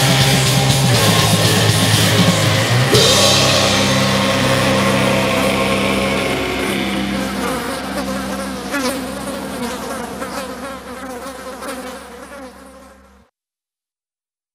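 Closing passage of an extreme metal track: a dense wall of distorted sound over a steady low drone, fading out to silence about thirteen seconds in. The next metal track starts just at the end.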